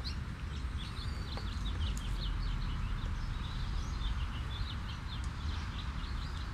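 Birds chirping in the trees: many quick, high chirps several times a second, over a low steady rumble.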